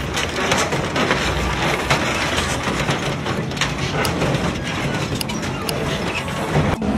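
Industrial shredder's rotating hooked cutter blades grinding and crunching material, with many sharp metallic clicks and cracks over a steady mechanical rumble. The sound cuts off suddenly near the end.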